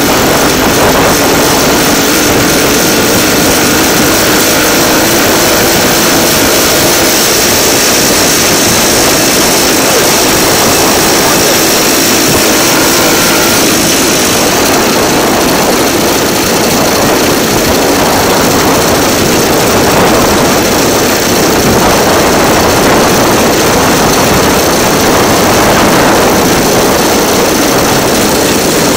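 DL2 motor draisine travelling along the rails, its engine running steadily and loudly under way, with the continuous running noise of the ride.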